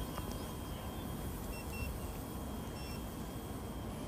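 Eachine E186 RC helicopter flying overhead: a steady faint whine over a low rushing noise, with a few short high beeps about halfway through.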